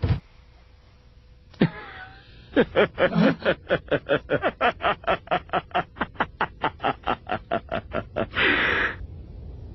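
A man's drawn-out laughter, a long run of short, evenly spaced "ha" pulses at about five a second, starting about two and a half seconds in. It ends near the end in a short breathy hiss.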